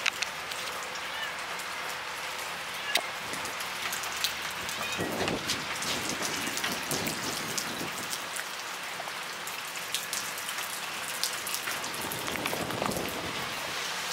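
Rain falling steadily, with separate drops striking nearby surfaces now and then.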